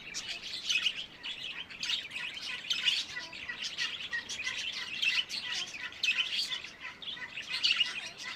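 Recorded birdsong sound effect: many small birds chirping and tweeting together in a dense, continuous chorus.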